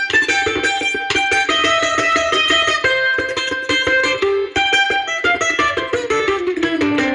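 Instrumental background music of quickly picked plucked strings in a guitar-like sound, with a lower note that slides down and back up near the end.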